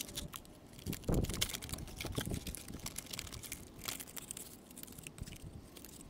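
Cardboard being handled: faint crinkling rustles and light clicks, with a dull knock about a second in.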